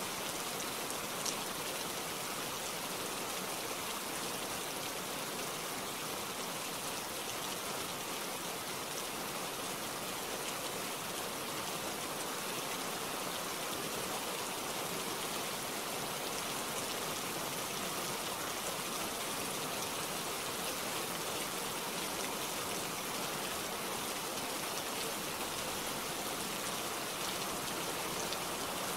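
Steady rain falling, an even hiss of many drops, with one short sharp tick about a second in.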